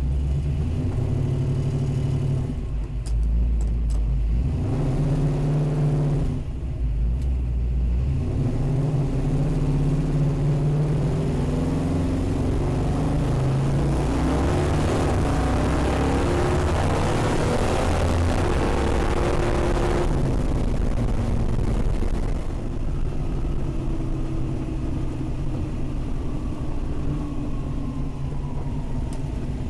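Mopar car's engine running under way, its pitch shifting up and down several times. It is loudest for several seconds in the middle under hard acceleration, then eases off.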